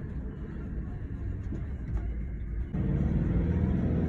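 Low, steady rumble of a vehicle on the move, growing louder just under three seconds in.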